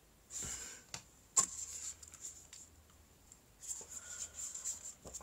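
Close handling noises of a drink container with one sharp click, then sipping and swallowing from the cup held to the mouth.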